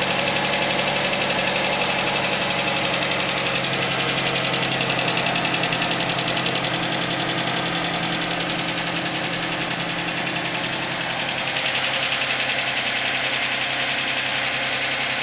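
Suzuki Vitara engine running cold with a rapid, steady knocking over its idle: the cold-start knock.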